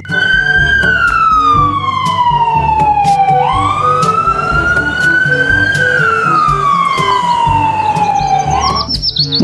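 Ambulance siren wailing: its pitch slides slowly down, jumps back up about three and a half seconds in, climbs slowly, then slides slowly down again. Background music plays underneath.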